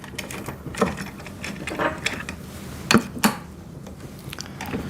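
Bolts being fitted and tightened on a wood chipper's wheel frame: a fine metallic ratcheting rattle with a knock about a second in and two sharp clicks about three seconds in.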